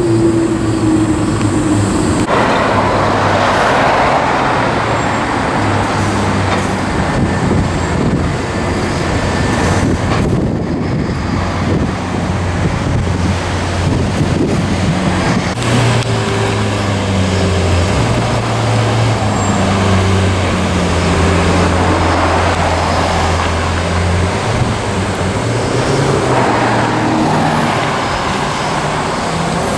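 City street traffic: vehicle engines running at low speed and idling, with a steady road hiss and a vehicle passing about two seconds in.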